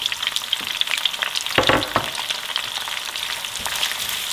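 Chopped onion sizzling as it fries in hot oil in a pan, stirred with a utensil, with small crackles and scrapes throughout and a louder clatter about a second and a half in.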